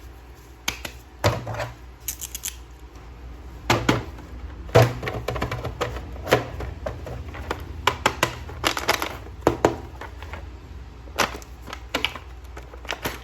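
Irregular clicks, taps and knocks of hard plastic being handled, as a toy action figure and its packaging are unboxed; the sharpest knocks come about four to five seconds in.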